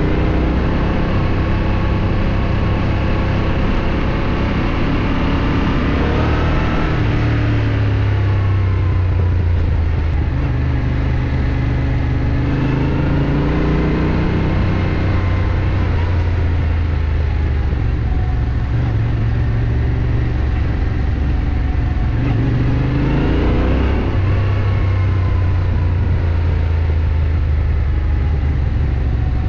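Yamaha Ténéré 700 parallel-twin motorcycle engine running under way. Its revs rise and fall a few times, around 6, 13 and 23 seconds in.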